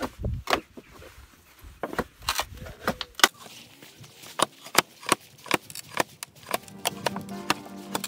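Sharp knocks and strikes from working pallet wood by hand, quickening to about three a second partway through. Background music comes in near the end.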